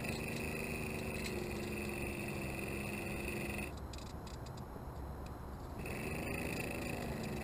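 RC canoe's motor running with a steady hum and high whine, cutting out a little after halfway and starting again about two seconds later, its pitch rising as it spins back up.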